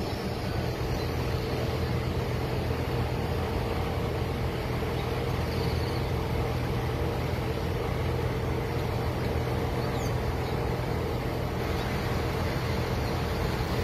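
A vehicle engine idling, a steady low hum over a constant rushing noise.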